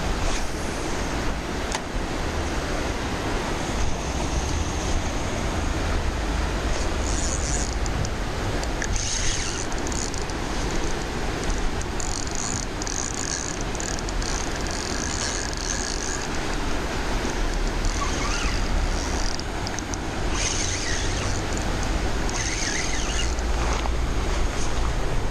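Steady rushing noise of wind buffeting an action-camera microphone beside a river in spate, with low rumbling gusts and faint high-pitched sounds coming and going.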